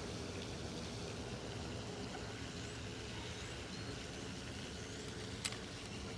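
Steady low rumble of distant road traffic, with a single click about five and a half seconds in.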